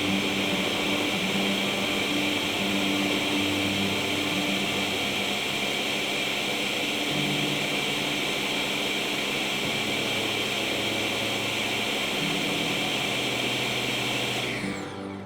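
Ninja 3-in-1 food processor motor running continuously with a steady whirring hiss, cutting off shortly before the end, with background music underneath.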